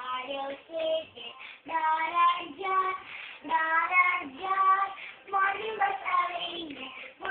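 A child's voice singing a song, with held, sliding notes in a high range.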